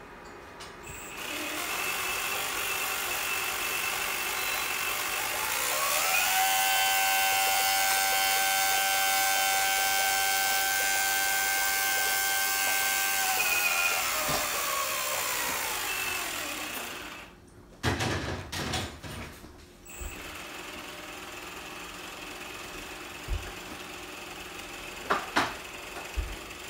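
4050-size brushless outrunner motor driving a small homemade pump, throttled from an RC transmitter. It whirrs at low speed, then about six seconds in speeds up to a steady high whine for about seven seconds, winds down and stops. A short clatter of knocks follows, then a few clicks near the end.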